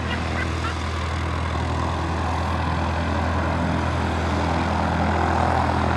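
An engine idling steadily, a low, even hum that does not change.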